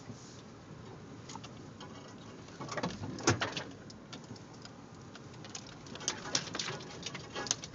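A vehicle bumping slowly along a rough dirt trail: a low rumble under irregular clicks, knocks and rattles. A cluster of knocks comes about three seconds in, with the loudest single knock among them, and another run of clicks and knocks from about five and a half seconds on.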